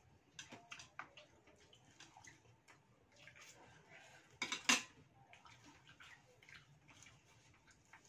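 Scattered light clicks and clinks of chopsticks, spoons and bowls at a meal table, with a brief louder clatter about four and a half seconds in.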